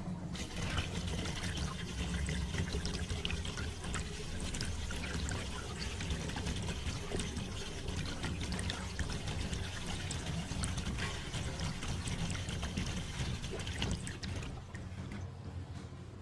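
Liquid clay slip pouring from a hose into a plaster toilet mould, a steady splashing and trickling as the mould fills. It stops about 14 seconds in.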